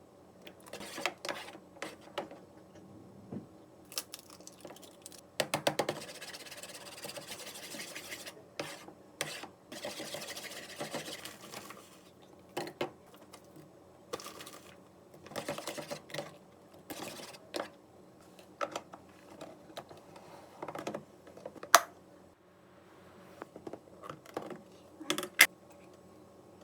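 Irregular small clicks, taps and short scrapes of utensils and dishes being handled, with one sharp click about 22 seconds in.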